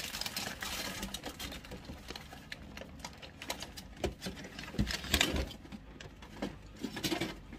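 Handling noise as a toy candy claw machine is loaded: a plastic bag rustling, wrapped candies and the machine's plastic parts clicking, with a few louder knocks past the middle.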